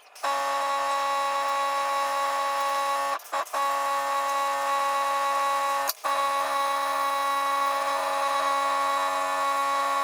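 Paint sprayer running with a steady mechanical whine while coats of paint are sprayed on, broken off abruptly a few times, around three seconds in and again near six seconds.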